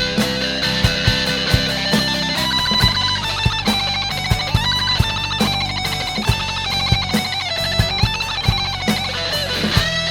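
Instrumental break of a rock band: an electric guitar plays a melodic lead line over a steady drum beat and low backing, with no vocals.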